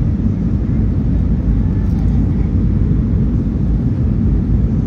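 Airbus A319-100 jet noise: a loud, steady low rumble with no distinct tones or changes.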